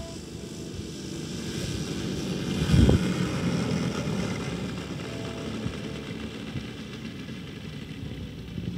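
Radio-controlled scale model Canadair CL-215's twin propellers running as it comes in low and touches down, swelling to a loud rush about three seconds in as it passes closest, then running quieter as it rolls out across the grass.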